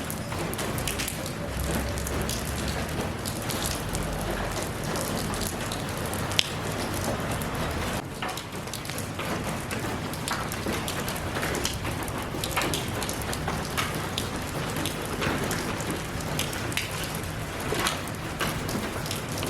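Steady rain falling, with many separate drops striking close by as short ticks over the even hiss, and one sharper tap about six seconds in.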